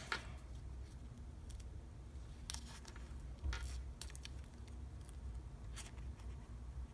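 Faint, scattered clicks and rustles of hands working tape and foam blocks, a few short ticks spread over several seconds.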